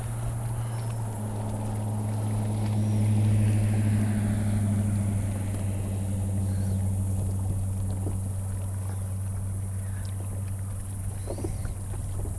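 Bass boat's outboard motor running under way with a steady low drone. It grows louder over the first few seconds, then holds steady, with wind noise over the boat.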